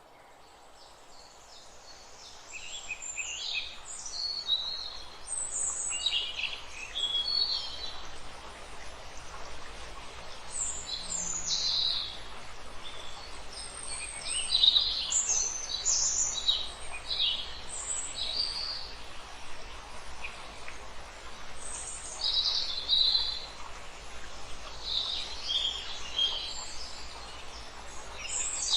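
Wild birds chirping and singing, many short high calls overlapping one another over a faint hiss, fading in over the first couple of seconds.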